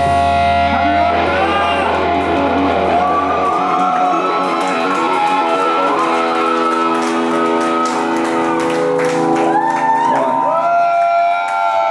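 Live rock band's electric guitar playing long held notes that bend up and down in pitch through an amplifier, with a low bass note ringing under them until it stops about three and a half seconds in: the drawn-out closing of a song.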